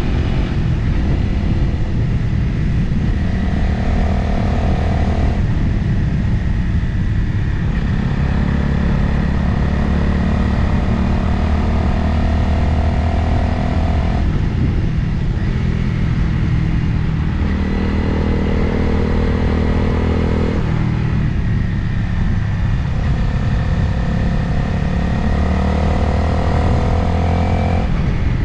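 Motorcycle engine running under way, with wind noise over the microphone. The engine note changes pitch in steps several times as the throttle and gears change, and climbs steadily while accelerating in the last few seconds.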